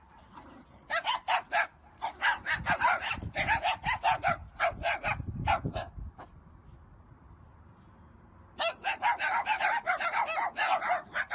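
Dogs barking in quick repeated runs, several barks a second, with a quieter stretch of about two and a half seconds before the barking starts again.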